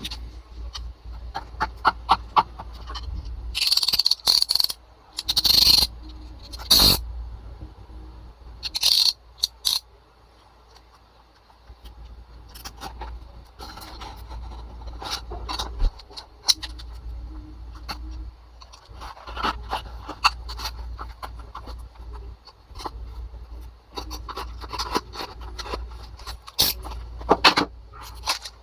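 Hands unboxing a small Tomica die-cast toy car: the cardboard box and packaging rustling and scraping, with scattered light clicks and several short, louder rustling bursts.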